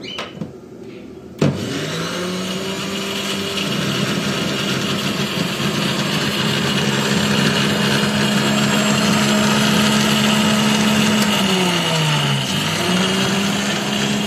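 Electric food processor's grinder attachment grinding dried thyme leaves into powder. It switches on with a click about a second and a half in and runs with a steady motor whine, which slows and drops in pitch briefly near the end before speeding back up.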